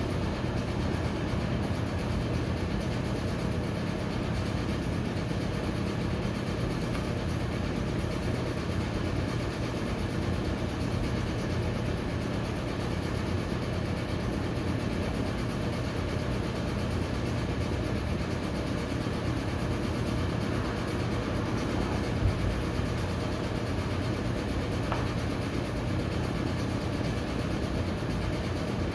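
Steady low mechanical hum under an even hiss, holding constant throughout, with a single faint knock late on.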